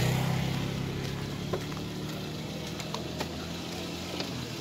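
Motorcycle engine passing close, then fading as it moves off down the road. A few light clicks.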